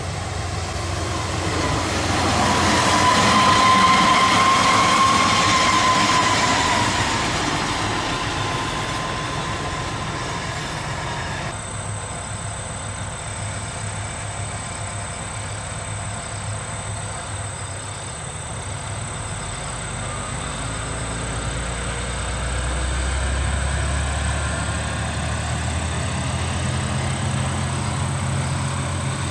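Chizu Express one-car diesel railcar passing close by, loudest about four seconds in, with a high whine rising and falling for several seconds as it goes. After an abrupt cut, the railcar runs on and away, its engine rumble swelling again about two-thirds of the way through.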